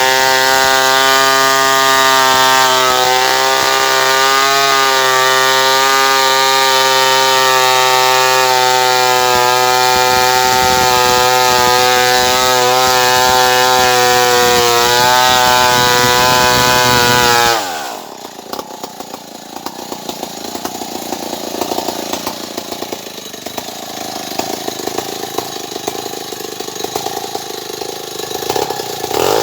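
Stihl 070 two-stroke chainsaw running at high revs with a steady engine whine that dips slightly now and then. About seventeen seconds in, the throttle is released and the revs fall quickly to a lower, rougher idle.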